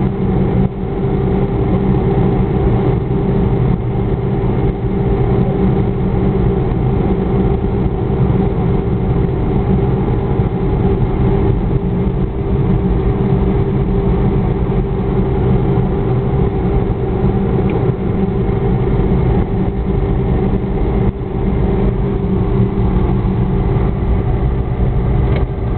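A car's engine running steadily with road noise, heard from inside the moving car's cabin.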